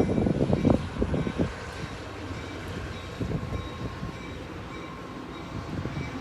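Train running past, a steady low rumble with uneven knocks in the first second and a half.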